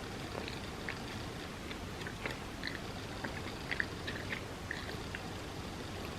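Close-up chewing of a bagel with cream cheese: irregular soft, wet mouth clicks over a steady background hiss.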